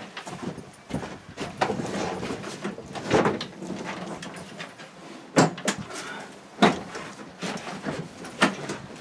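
Irregular knocks, bumps and scraping from a Toro TimeMaster lawnmower being shuffled and manoeuvred in a cramped wooden shed, with boots scuffing on the floor. The sharpest knocks come about halfway through and near the end.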